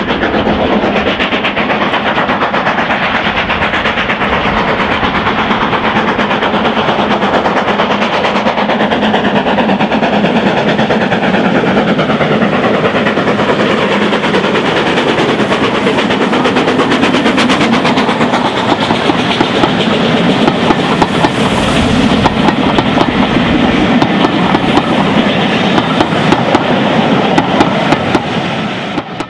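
Two steam locomotives double-heading a train, led by LMS 4F 0-6-0 No. 43924, chuffing as they approach and pass, followed by the coaches' wheels clicking over the rail joints, with sharper clicks in the last third. The sound cuts off suddenly at the end.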